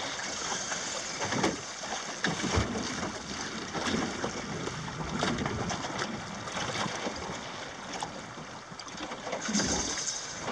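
Steady wind and water noise aboard a small open boat moving slowly at sea, with a few light knocks.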